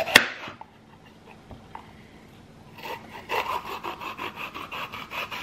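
Kitchen knife cutting a red bell pepper on a plastic cutting board. A sharp knock of the blade on the board comes just after the start, and about halfway through a rapid run of short cutting strokes follows as the blade works through the pepper.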